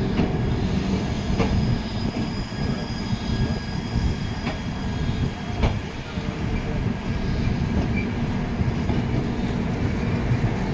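Rajdhani Express LHB passenger coaches rolling past as the train pulls out: a steady rumble of wheels on the rails, with occasional sharp clicks as wheels cross rail joints.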